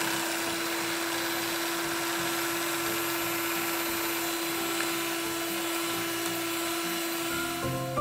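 Electric hand mixer running at one steady speed, its beaters whisking butter and sweetener in a glass bowl, with a constant motor hum; the motor cuts off near the end.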